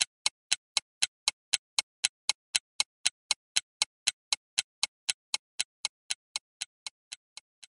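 Clock-like ticking sound effect, evenly paced at about four ticks a second, fading out near the end. It acts as a waiting cue while an on-screen menu prompts the viewer to make a choice.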